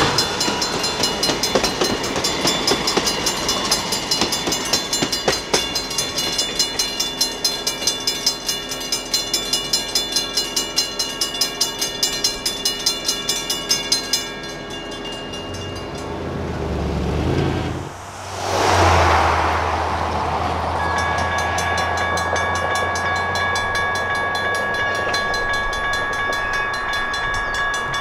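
A railroad crossing bell strikes about three times a second over a passing train. Then, after a cut, a train rumbles past with a steady horn tone.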